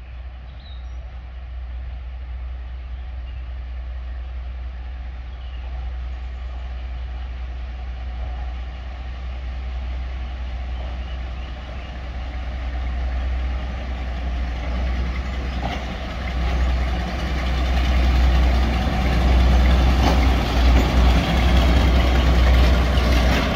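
The engines of a Class 42 'Warship' diesel-hydraulic locomotive running as it approaches, a deep rumble that grows steadily louder and is loudest in the last several seconds.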